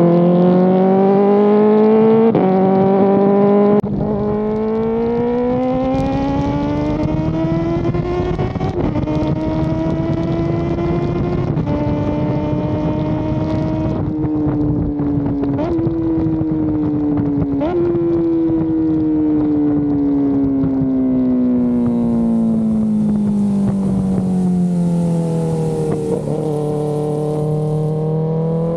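Kawasaki ZX-4RR's 399 cc inline-four revving under acceleration on track, its pitch climbing and stepping at gear changes, then falling for several seconds as the bike slows, and rising again near the end. Wind buffets the microphone throughout.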